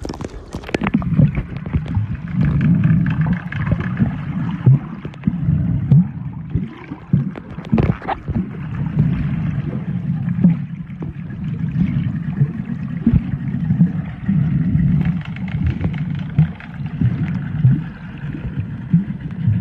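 Muffled water sound from a camera held at and below the sea surface while snorkelling: a low churning rumble with irregular bubbling and splashing clicks.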